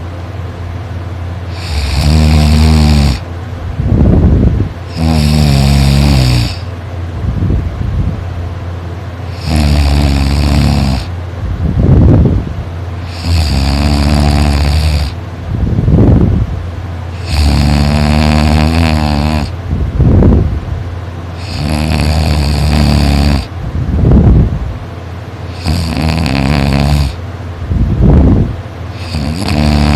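One person snoring very loudly in a steady rhythm, about one snore every four seconds. Each snore is a long, buzzing rattle of about a second and a half, with a shorter, lower sound between snores.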